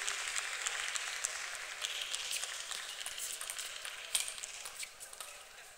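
Table tennis rally: the ball clicking off bats and table, the sharpest click about four seconds in, over a steady hiss of hall noise with many fainter clicks.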